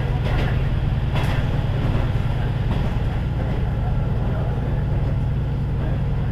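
On-board running sound of a KiHa 40 series diesel railcar under way: a steady low drone from its diesel engine and running gear. There is a brief click about a second in.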